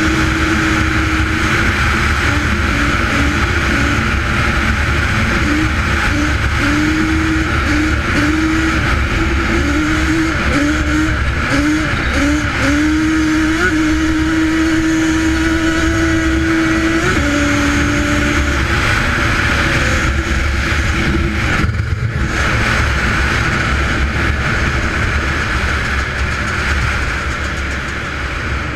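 Yamaha Raptor 700's single-cylinder four-stroke engine under full throttle, its pitch climbing in a string of short rises through the first half, then holding steady before dropping a little past the middle and fading. Heavy wind rush on the helmet-mounted camera runs under it.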